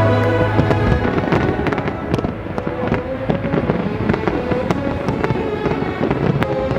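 Fireworks going off in quick succession, many sharp bangs and crackles, over classical background music with held notes.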